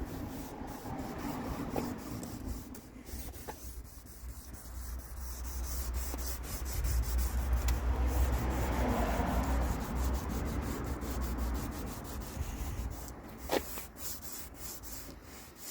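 Plastic headlight lens being hand-sanded with abrasive paper: a continuous rubbing scratch, louder through the middle, with a low rumble under it and a couple of sharp knocks near the end.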